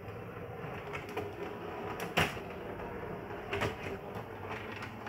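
Model tram running on the layout: a steady low motor hum with irregular clicks and clacks as its wheels cross rail joints and points, the loudest about two seconds in.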